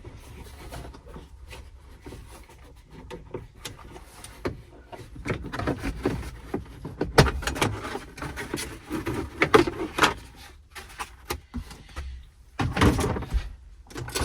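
Hand tools and parts clicking, knocking and rubbing while the seat belt's T50 Torx anchor bolt is taken out, with a sharp knock about halfway through and a burst of clatter near the end.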